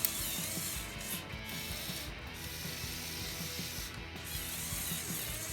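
Plastic gears of a Lego Technic tow truck clicking and whirring in a fast ratcheting rattle, stopping briefly three times.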